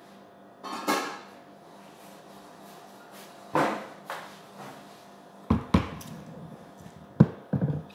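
Two soft scuffs, then a china plate set down on a table, with a few sharp knocks and clatters of dish and table in the last few seconds.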